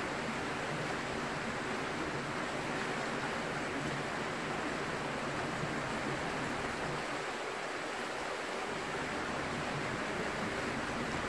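River water rushing past the boulder in a steady, even wash of noise.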